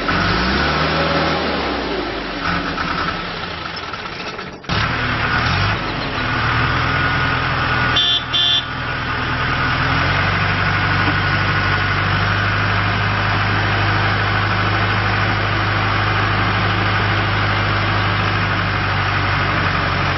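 John Deere 310G backhoe loader's four-cylinder diesel engine running, its pitch rising and falling in the first few seconds, then settling into a steady idle about halfway through. Two short high beeps sound about eight seconds in.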